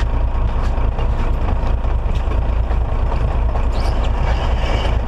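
Fishing boat's engine running underway, a steady low rumble with an even wash of noise over it.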